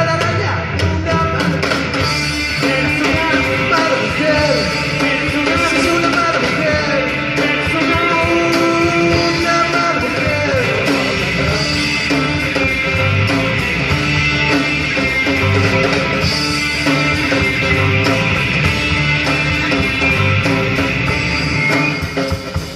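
Rock band playing live, with guitars, bass and drums, loud and steady; the music falls off just before the end.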